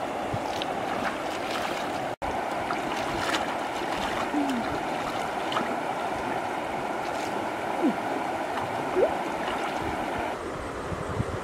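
Steady rushing noise of flowing river water, with a few faint clicks and small splashes; the sound cuts out for an instant about two seconds in.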